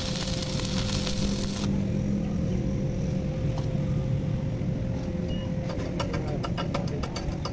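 A machine running steadily with a constant hum. From about six seconds in, a rapid run of sharp clicks or ticks joins it.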